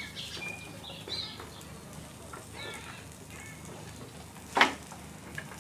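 Scattered short bird chirps over a faint steady hum, with one sharp knock about four and a half seconds in, the loudest sound.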